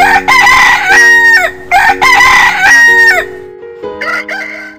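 Rooster crowing twice in quick succession, each crow about a second and a half long and dropping in pitch at the end.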